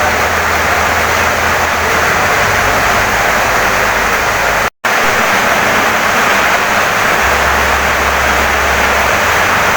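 Heavy rain pouring steadily on a wooden house, a dense, even hiss. It cuts out completely for a split second about halfway through.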